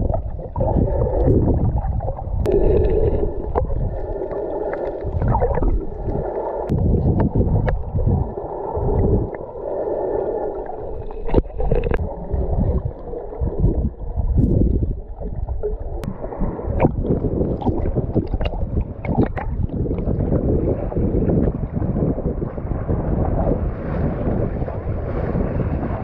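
Muffled underwater sound from an action camera moving through shallow sea water: low rumbling and gurgling with scattered sharp clicks and knocks. About two-thirds of the way through, a brighter hiss of washing water comes in.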